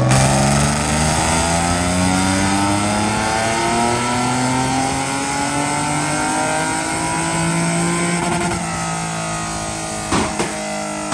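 Nissan 350Z's VQ35DE V6 in a dyno pull: the engine note climbs steadily in pitch under load for about eight seconds, then drops as the throttle is let off, with a few sharp pops near the end.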